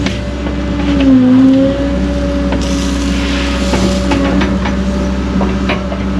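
New Caterpillar excavator's diesel engine running steadily, its pitch sagging briefly about a second in, with a rush of hiss in the middle and a few light clicks and knocks.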